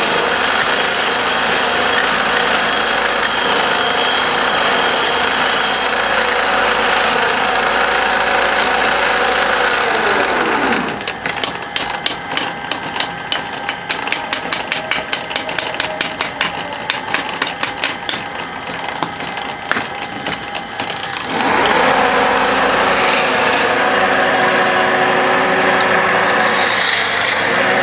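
Wood lathe running with a tool cutting the spinning wood; about ten seconds in the motor winds down, leaving about ten seconds of quick, regular clicks, roughly four a second. Then the lathe starts up again and the cutting resumes.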